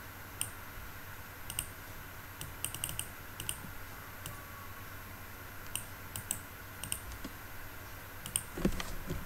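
Scattered light clicks of laptop keys and pointer buttons, some single and some in short quick clusters, with a couple of dull knocks near the end.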